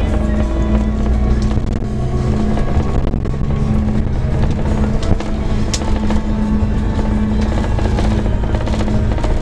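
Steady low running and road noise of a Scania K410 coach on the move, with music playing over it.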